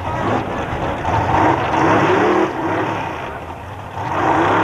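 Pro Gas drag car's engine revving in surges that rise and fall in pitch, with one stretch of revs about a second in and another near the end, around a burnout.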